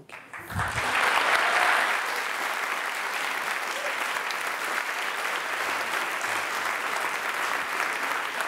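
Large audience applauding. It breaks out at once, builds within about a second, is loudest for the next second or so, then carries on steadily.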